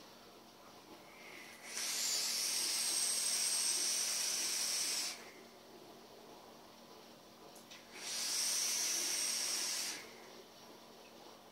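Homemade sub-ohm box mod fired during two long drags, each a loud airy hiss of air drawn through the hot coil. The first lasts about three and a half seconds and the second about two, with a faint click just before the second.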